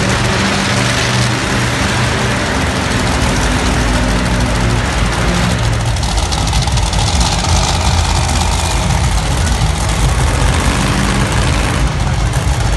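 Monster truck engines running loudly at low revs, a steady low note, as the trucks drive slowly around the arena floor.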